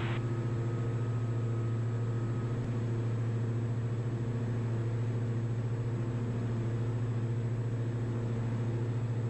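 The Diamond DA62's twin Austro AE330 turbodiesel engines and propellers droning steadily at takeoff power in the initial climb, heard from inside the cockpit.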